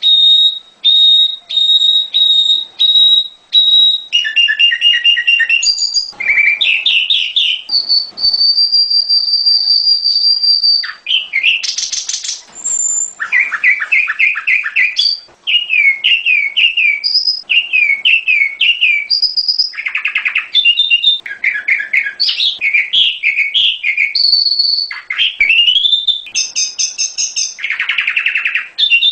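Prenjak gunung singing loudly and continuously, a varied run of high phrases. It gives short repeated whistled notes, one long held whistle, rapid strings of down-slurred notes and fast trills.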